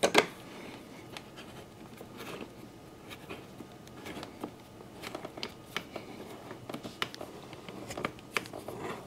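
Faint, irregular small clicks and light scrapes of metal hand tools and a bolt being handled, a few sharper ticks about a second in and around five, seven and eight seconds in.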